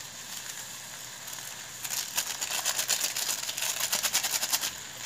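A sachet of powdered rice seasoning crackling and rustling in rapid little clicks for about three seconds as it is shaken out over the rice and vegetables in the pot.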